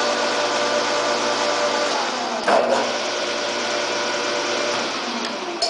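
Turnpro 14" x 40" bench lathe, with a 2 hp single-phase motor, running steadily: a constant mechanical hum of many tones from the motor and gearing. There is a single clunk about two and a half seconds in.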